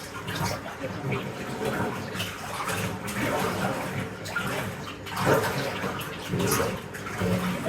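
Tap water running into a bathtub, splashing and gurgling unevenly, rising and falling in level.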